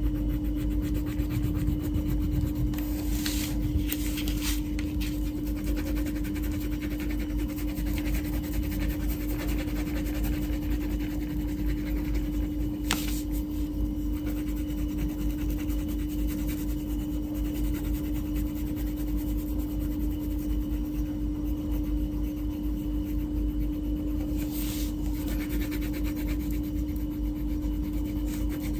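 Wax crayon rubbed across a paper colouring page in continuous quick strokes, a scratchy rasping that never lets up, with a few light taps and a steady low hum underneath.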